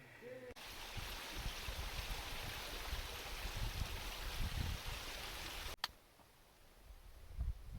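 Steady rushing of flowing water, with low wind buffeting on the microphone underneath. It cuts off abruptly about six seconds in, leaving only a faint low wind rumble.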